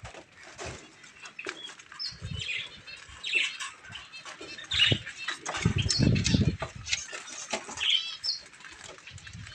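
Diamond doves flapping and fluttering in the hand and against a small wire cage as they are put in, with a longer flurry of wingbeats about six seconds in. Light rattles of the wire cage and short high bird chirps are heard between the flaps.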